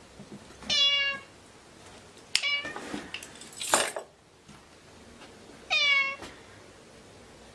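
Ginger tabby cat meowing three times, each meow sliding down in pitch and levelling off, with a short breathy noise between the second and third.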